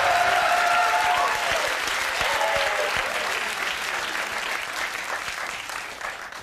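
Studio audience applauding, with a few voices calling out over the clapping in the first seconds; the applause dies away near the end.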